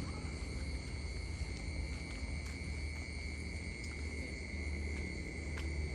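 Night insects trilling steadily at one high pitch, with a low rumble underneath.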